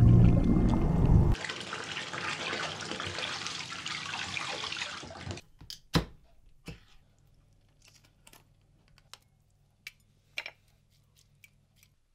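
Music ends about a second in and gives way to a few seconds of running water. Then a ring-pull tin is cracked open with a sharp click, followed by a few faint clicks of handling over a low steady hum.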